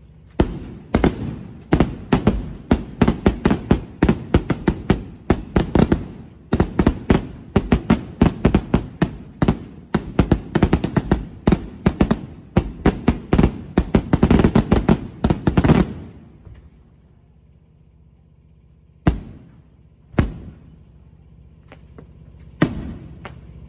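Fireworks going off in a rapid barrage of sharp bangs, several a second, for about fifteen seconds. The barrage stops suddenly, followed by a lull broken by three single bangs.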